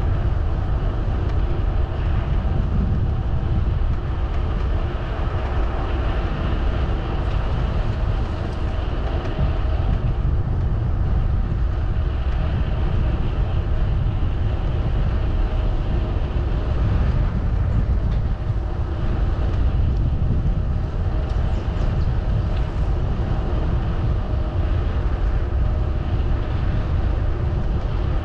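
Steady rushing and rumbling from a bicycle ride: wind buffeting the microphone and tyres rolling on the path, with a faint constant hum.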